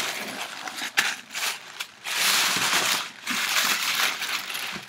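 Tissue paper rustling and crinkling as a wrapped item is pulled open by hand, with a dense burst of crumpling about two to three seconds in.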